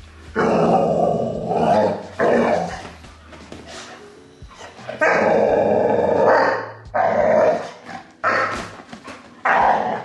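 Rottweiler puppy growling and barking in several loud bursts, some over a second long.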